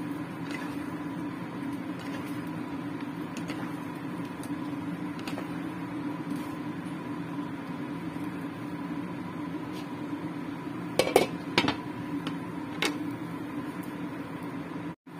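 Wooden spatula stirring and scraping curry in a non-stick pan with light clicks, over a steady low hum. About eleven seconds in come a few louder clinks as a glass lid is set on the pan.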